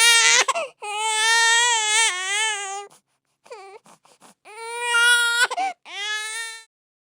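Infant crying: a cry trailing off about half a second in, then a long held cry of about two seconds, a few short broken whimpers around the middle, and two more cries near the end.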